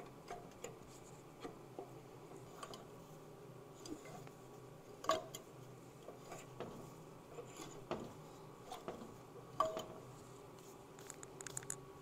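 Scattered light metallic clicks and taps as the magneto flywheel of a Polaris Indy snowmobile engine is turned and handled by hand, with a few louder clicks among them and a quick run of small ticks near the end.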